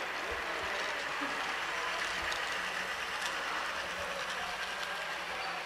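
Model train running on a layout amid steady hall noise, with a few soft low thumps.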